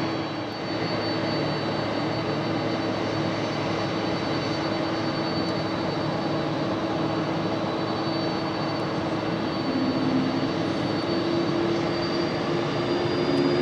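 Boeing 767-200ER's twin jet engines running at takeoff power, a steady rushing noise with a low hum and a high whine, growing slightly louder after about ten seconds.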